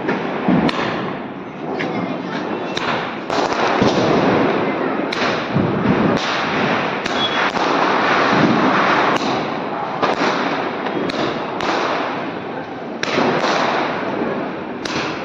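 Diwali fireworks going off: a steady hissing crackle of sparks with repeated sharp cracks about once a second.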